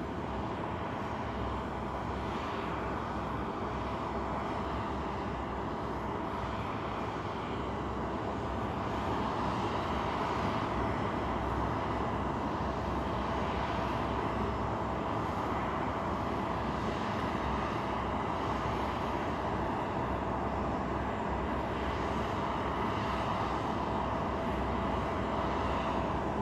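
Steady jet aircraft noise on the ramp: a continuous rush with a thin steady whine, getting a little louder about eight seconds in.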